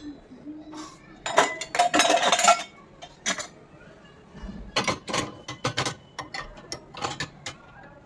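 Stainless steel bowls and cups clinking and clattering against each other and against the dishwasher's wire racks as they are loaded. A dense rattle with a ringing note comes between about one and two and a half seconds in, followed by scattered lighter clinks and knocks.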